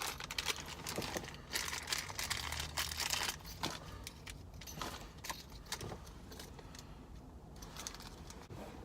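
Small hard parts being handled: a rapid run of light clicks and rattles for the first few seconds, then scattered single clicks.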